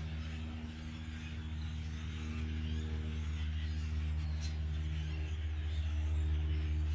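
Sawmill engine running steadily, with a low drone and a hiss over it; some of its tones shift a little about five seconds in.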